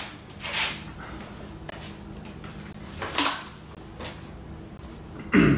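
Quiet room tone with a faint steady hum and a few short rustling or handling noises, about half a second in and again about three seconds in, from a man bending down and handling something. Near the end there is a brief, louder breathy vocal sound.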